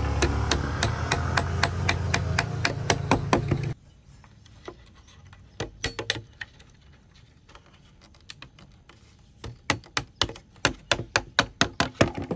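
Steel blade striking bamboo, rapid sharp taps at about three to four a second, in runs, as bamboo slats are knocked into a bamboo chair seat frame. A low engine hum runs under the first few seconds of tapping and then cuts off suddenly.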